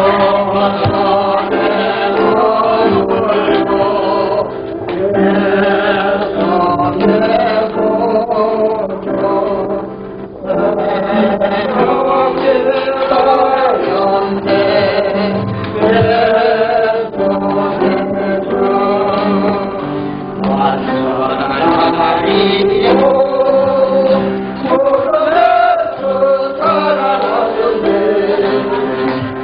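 A choir or congregation singing a hymn of praise with instrumental accompaniment, a steady sustained melody with short breaks between phrases.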